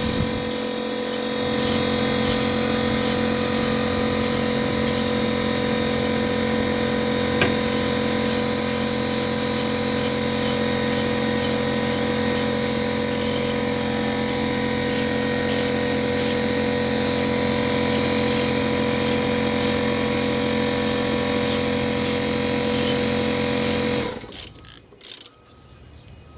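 Air compressor running steadily with a constant motor hum, then shutting off abruptly about 24 seconds in; a couple of short clicks follow.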